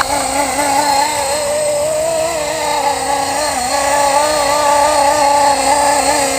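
Electric RC helicopter (a Blade SR) in flight: a steady whine from the motor and rotors, its pitch wavering up and down as the head speed shifts under load.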